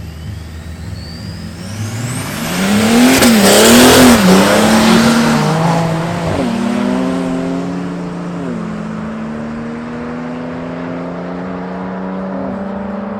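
Two twin-turbo 3.0-litre BMW straight-sixes, a petrol E92 coupe and a 635d diesel, launching hard in a drag race. The engine pitch climbs and drops through quick gear changes about two to five seconds in, the loudest part, with a burst of hiss. The cars then pull away with longer rises and upshifts and fade with distance.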